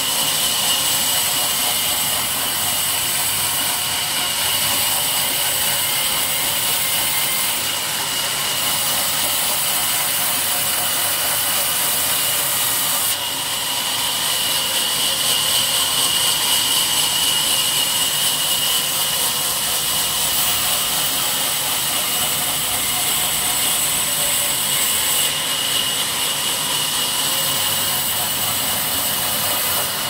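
Sawmill band saw running and ripping a wattle log lengthwise: a loud, steady mechanical noise with a high-pitched whine.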